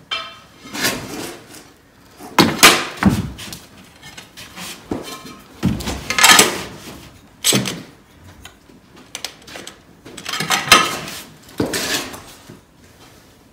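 Ceramic floor tiles and a trowel being worked into thinset mortar: an irregular series of scrapes and clacks as tiles are slid, knocked and pressed into place.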